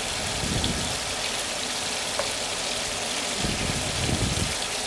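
Shrimp sizzling in hot oil in a frying pan, a steady crackling hiss as they fry to half-done, with a few low bumps as the pieces are moved with tongs.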